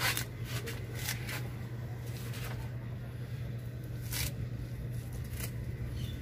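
Leaves being plucked by hand off the thin branches of a bonsai tree: small irregular snaps with leaf rustling, roughly one every second or so, over a steady low hum.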